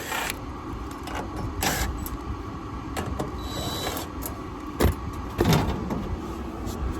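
Sheet-metal access panel of a rooftop gas-electric package unit being opened: a few separate knocks and clatters, the loudest about five and a half seconds in, over a steady mechanical hum.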